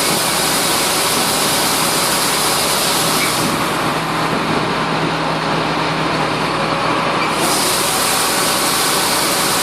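Massey Ferguson 9690 combine running steadily, a loud, even machine noise. The high hiss thins for a few seconds in the middle, while a low hum comes up.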